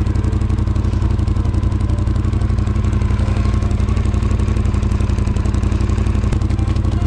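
Snowmobile engine running steadily close by, with a fast, even pulse and an unchanging pitch.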